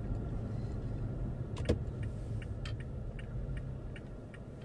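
Steady low rumble of a moving vehicle, with one sharp click about a second and a half in and faint irregular light ticks after it.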